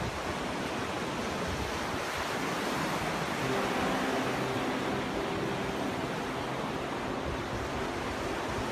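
Ocean surf washing in as a steady, even rush of waves. A faint, low, steady hum comes in about three and a half seconds in.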